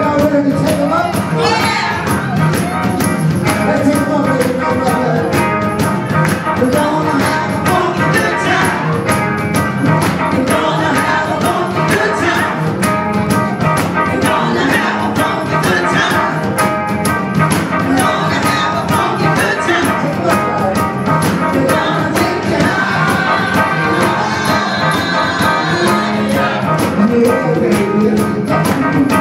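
A live band playing dance music with electric guitars, bass and drums over a steady beat, with a woman singing.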